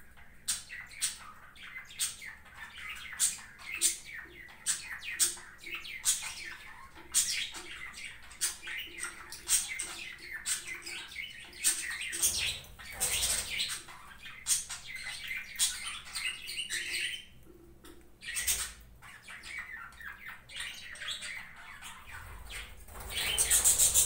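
Steel oil ring being set into the bottom groove of a piston by hand: a run of light metallic clicks and scrapes, with a louder dense rattle near the end.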